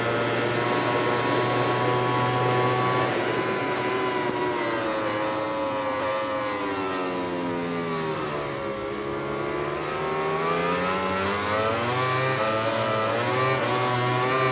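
Yamaha YZR-M1 MotoGP bike's inline-four engine, heard onboard at racing speed. It holds high revs, then the revs fall away for several seconds as the bike slows into a corner. About 9 seconds in they climb again as it accelerates out, with quick upshifts near the end.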